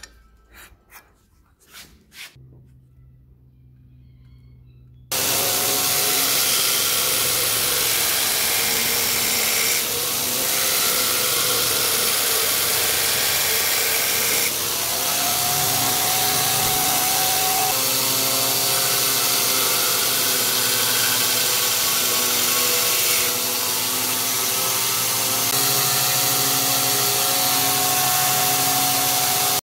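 Belt grinder running, its abrasive belt grinding the steel bevel of a knife blank held in a bevel grinding jig. It starts suddenly about five seconds in, after a few faint clicks, and runs steadily with a hum of tones under the grinding noise.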